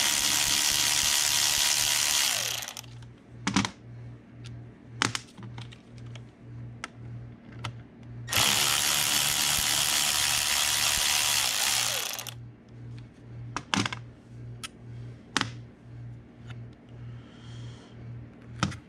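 A power drill spinning out the two bolts left in a Tremec TKO transmission case, in two runs of about two and a half and four seconds, each winding down at the end. Between and after the runs come a few sharp metallic clicks.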